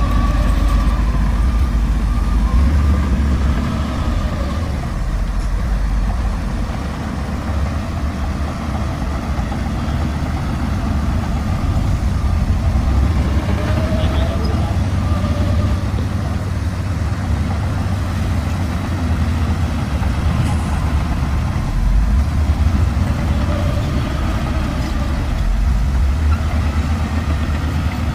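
Shantui bulldozer's diesel engine running, a deep steady drone that dips a little around a quarter of the way in and swells again later.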